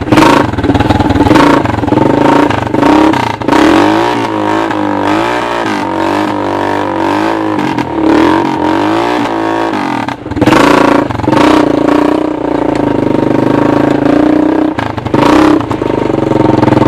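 Air-cooled single-cylinder four-stroke engine from a 1986 Honda TRX200SX ATV, mounted in a converted golf cart, running under way through a makeshift muffler. The engine speed rises and falls over and over as the throttle is worked, with a few sharp loud bursts near the start and again about ten seconds in.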